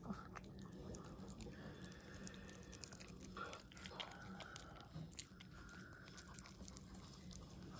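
A Pomeranian eating chopped boiled egg and carrot from a bowl: faint, quick, wet chewing and smacking clicks.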